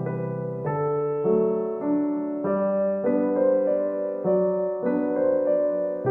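Background piano music: a slow, gentle run of sustained notes and chords, one change about every half second.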